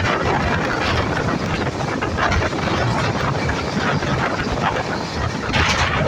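Indian Railways express passenger coach running at speed, heard from its open window: a steady rush of wheels on rail with irregular clatter and wind on the microphone, with a louder burst of clatter near the end.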